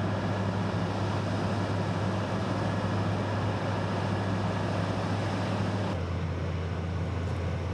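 Heavy crawler crane's diesel engine running steadily under load during a lift: a constant low drone over a broad rumble. The drone steps slightly lower in pitch about six seconds in.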